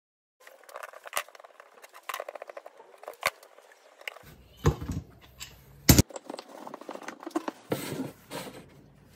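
Clamps being unscrewed and taken off a glued-up wooden block: clicks and rattles from the clamp screws and jaws, including a quick run of small clicks, then wooden pieces knocked and set down on the bench. The loudest is a sharp knock a little before the last third.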